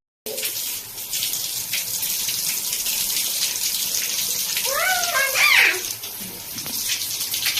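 Water spraying steadily from a shower head, a continuous hiss, with a short squeal that glides up and down about five seconds in.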